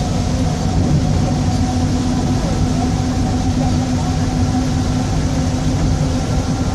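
Mercedes-Benz OF-1722M city bus running steadily under way, its diesel engine rumbling low with a steady growl from the differential over it.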